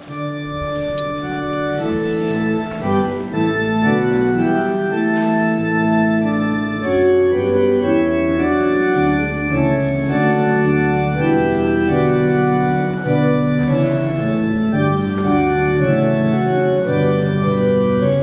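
Organ music played as a closing voluntary: full sustained chords that change every second or so, with a low bass line underneath.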